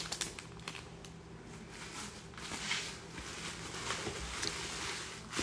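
Bubble wrap and plastic packaging rustling with small crackles as hands dig into a cardboard box and lift out a wrapped item.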